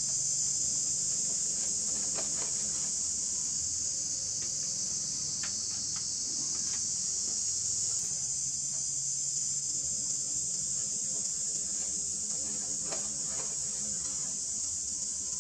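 Steady, high-pitched chorus of insects, such as cicadas or crickets, droning without a break, with a few faint clicks.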